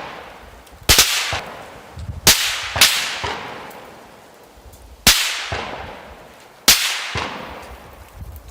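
Supersonic rifle bullets cracking past: five sharp, whip-like cracks at uneven intervals, each trailing off in a long rolling echo.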